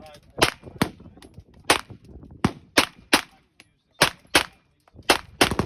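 Gunshots fired mostly in quick pairs, about ten shots in all, with fainter shots in between.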